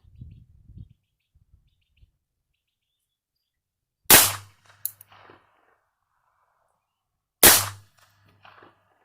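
Two .22 LR pistol shots from a Bond Arms Roughneck two-barrel derringer, fired about three seconds apart, each a sharp crack with a short echo.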